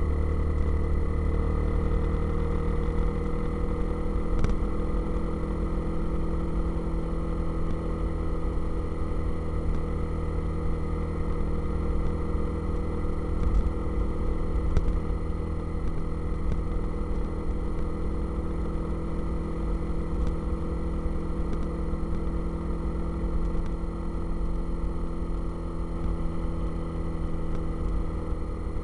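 Motorcycle engine running at a steady speed, with wind rumbling on the microphone.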